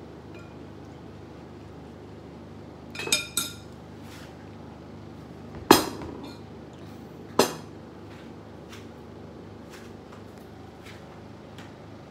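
Metal spoon and cutlery clinking against ceramic plates at a dinner table: two ringing clinks, then two louder sharp knocks a second and a half apart, then a few faint ticks, over a faint steady hum.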